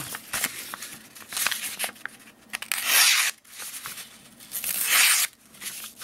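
Stainless steel Wharncliffe blade of a pocket knife slicing through a sheet of paper in two strokes, about 3 s and 5 s in. It is a paper sharpness test, and the blade cuts cleanly: it is fairly sharp.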